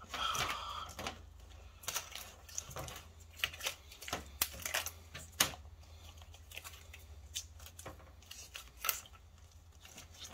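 Old black tape being peeled off in a long strip, coming away in irregular sharp crackles and ticks, over a low steady hum.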